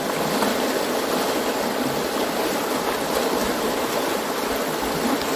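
McKenzie River rapids rushing steadily.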